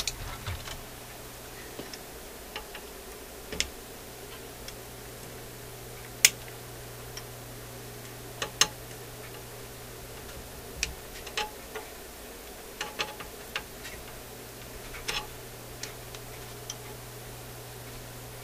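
Irregular sharp clicks of wire cutters and hand tools snipping and handling wires in a metal tube-amplifier chassis, about a dozen spread unevenly, the loudest about six seconds in, over a steady low hum.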